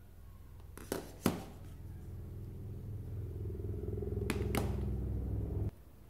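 Two sharp clicks about a second in, then a low, steady buzzing hum from a JBL Boombox speaker on its wired audio input. The hum grows slowly louder, has two more clicks in it, and cuts off suddenly just before the end, as the mini jack comes out.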